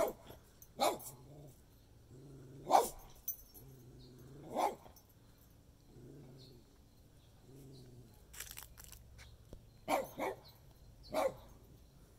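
A dog barking: about seven short single barks, a second or two apart, with a pause of several seconds in the middle.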